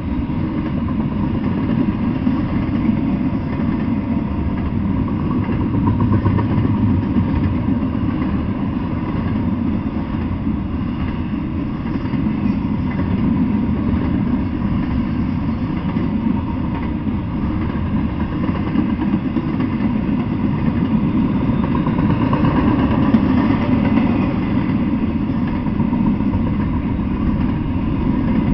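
Double-stack intermodal freight train rolling past, a steady low rumble of steel wheels on the rails.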